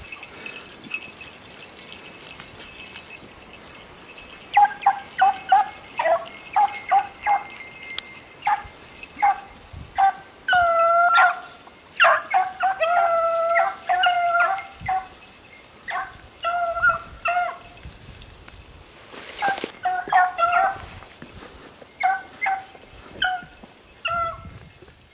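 Beagles baying on a rabbit's scent trail. The short barks start about four seconds in, with a few longer drawn-out bays in the middle, a brief pause, then more barks near the end.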